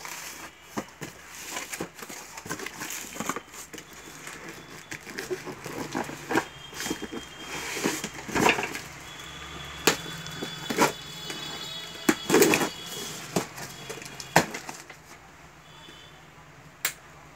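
A stapled cardboard shipping carton being opened by hand: flaps pried apart and the cardboard scraping, rustling and cracking, with many irregular sharp knocks. A thin squealing tone runs for a few seconds near the middle.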